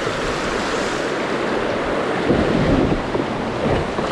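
Whitewater rushing and splashing around a kayak as it runs a rapid, with heavier surges of water from about halfway through.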